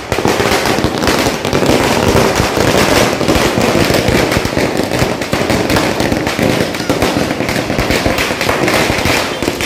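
A string of firecrackers going off in a long run of rapid, irregular bangs, set off for a street campaign procession.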